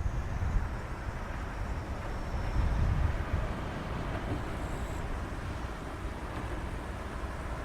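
Distant rumble of a Boeing 777-200ER airliner's jet engines on its landing approach: a steady, low, toneless noise.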